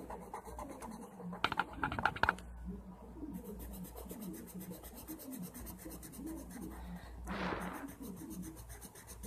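Felt-tip marker scratching on paper as a drawing is coloured in, with a cluster of quick clicks about a second and a half in and a short rustle near the end.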